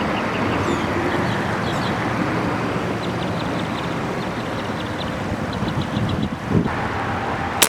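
Steady motor and wind noise of a boat on the water, with one sharp crack right at the end.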